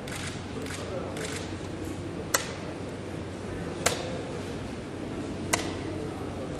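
Rapid blitz chess: the players slap the chess clock buttons in turn, four sharp clicks about one and a half seconds apart, with softer knocks of wooden pieces set down on the board. A low murmur of voices runs underneath.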